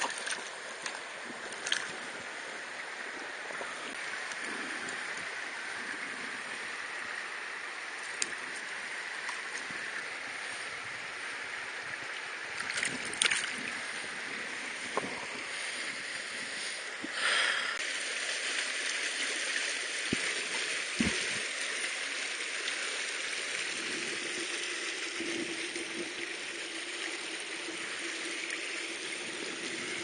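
Mountain stream water rushing and gurgling over rocks in a steady flow, with a couple of brief knocks and rustles about halfway through.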